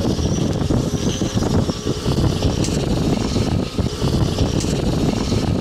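Strong rear-flank downdraft wind of a tornadic supercell buffeting the stopped car and the microphone: a loud rushing noise that rises and falls with the gusts.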